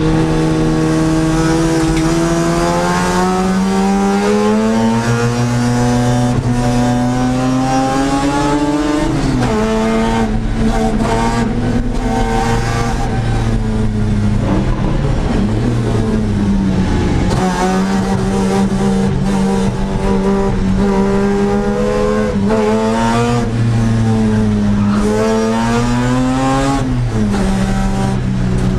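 1982 Mazda RX-7's 13B rotary engine at racing speed, heard from inside the stripped-out cabin. Its pitch climbs steadily through a gear and drops sharply at an upshift about nine seconds in, then climbs and drops again at another upshift near the end.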